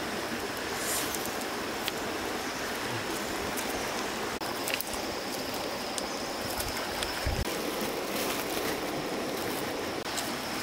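Steady rush of a shallow stream running over rocks, with a few faint crackles from a small wood fire.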